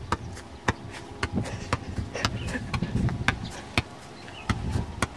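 A ball bouncing and being struck in a game: a string of about a dozen sharp thuds at irregular spacing.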